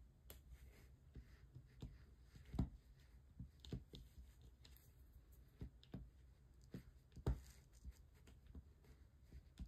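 Faint, irregular light taps and clicks of a diamond-painting drill pen pressing resin drills onto the sticky canvas, with two louder knocks among them.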